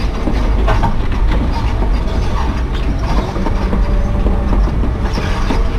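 Excavator-mounted hydraulic breaker hammering rock and rubble with rapid, steady blows over the low rumble of the excavator's diesel engine, heard from inside the operator's cab.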